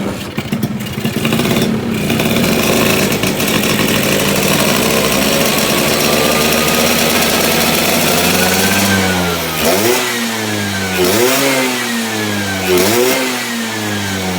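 Tuned Vespa PX two-stroke engine revving. Its pitch climbs steadily for several seconds, then drops and jumps back up in three quick throttle blips.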